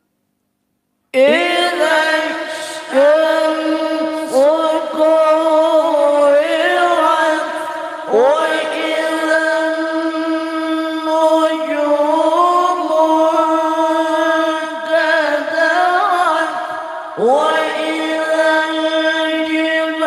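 A male qari reciting the Quran in the melodic tilawah style through a microphone: long held, ornamented notes that slide between pitches. It begins about a second in, with short breath breaks between phrases.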